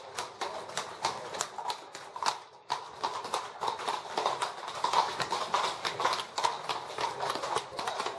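Shod horses' hooves clopping on a paved street as the horses are ridden at a walk: irregular, overlapping hoof strikes with a short lull about two and a half seconds in.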